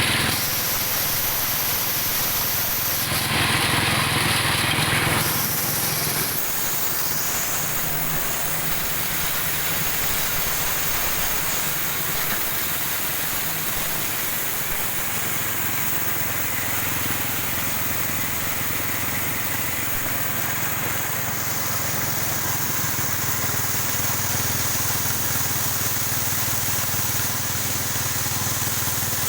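A small engine-driven machine running steadily, with a broad hiss over its hum and a louder, noisier stretch about three to five seconds in.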